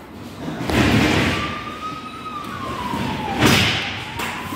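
An emergency siren wailing slowly, its single tone rising and falling in pitch, signalling a fire crew turnout. Two loud thumps come about a second in and about three and a half seconds in; the second is the loudest sound.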